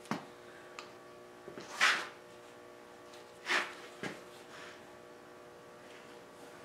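A steady electrical hum, with a few short swishing, rubbing sounds as a freshly varnished mahogany table leaf is handled and shifted on a padded workbench. The loudest swish comes about two seconds in, another about three and a half seconds in.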